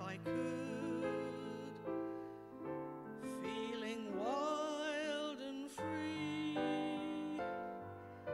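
A woman singing a musical-theatre ballad to piano accompaniment. About four seconds in, her voice glides up into a long held note with wide vibrato.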